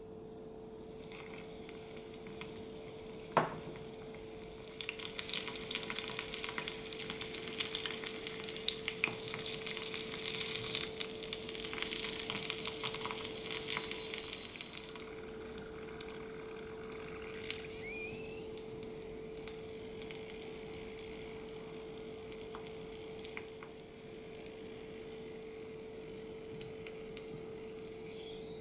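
Small panko-breaded pork cutlet deep-frying in a miniature steel wok of oil. A sharp click comes a few seconds in, then a dense crackling sizzle from about five seconds that eases to a quieter sizzle after about fifteen seconds.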